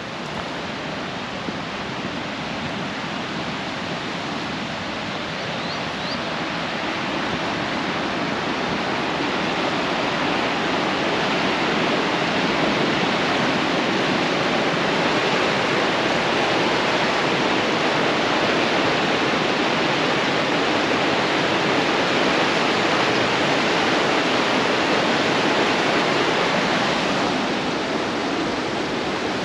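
Whitewater of a rocky river rushing steadily. It grows louder over the first several seconds, holds, then eases slightly near the end.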